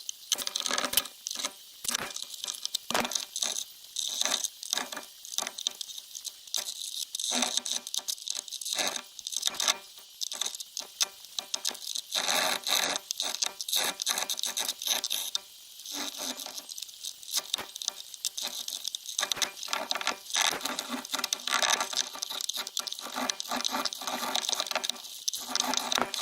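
Rapid, irregular scratching and scraping as old adhesive and broken glass are scrubbed off the iPad mini's frame with an alcohol-soaked rag, sped up.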